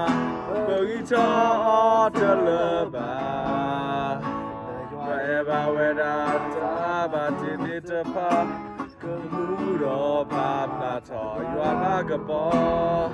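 Acoustic guitar strummed as accompaniment while two men sing a song together, their voices holding long, wavering notes.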